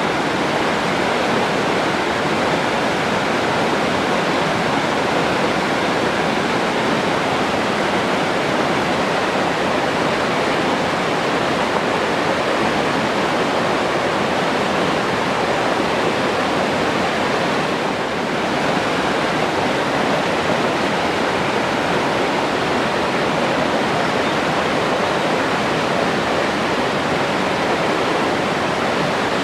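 Forest stream rushing steadily over rocks.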